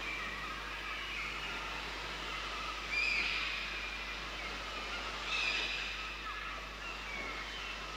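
Outdoor riverside ambience with birds calling, two louder sweeping calls standing out about three and five seconds in, over a soft steady hiss.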